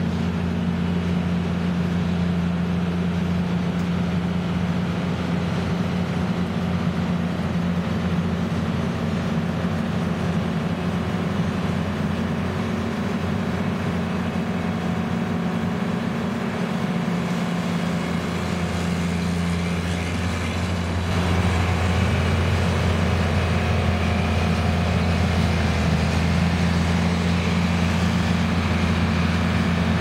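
Large diesel engines running steadily as a New Holland CR9070 combine harvester and a tractor towing a grain cart drive along a road. It is a deep, even hum that gets louder about two-thirds of the way through as the combine passes close by.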